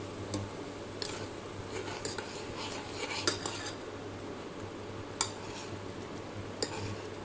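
Metal utensil clinking against a cooking pot of boiling herbal decoction, five sharp separate clinks spread out over the stretch, over a low steady hum.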